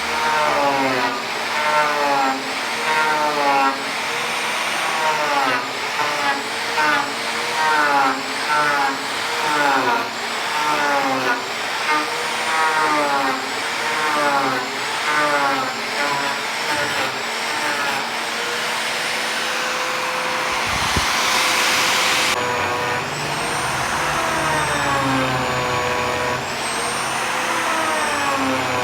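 A power tool's motor working wood, its pitch dipping and recovering over and over as it bites in and eases off. About two thirds of the way through there is a stretch of steadier hiss that changes suddenly.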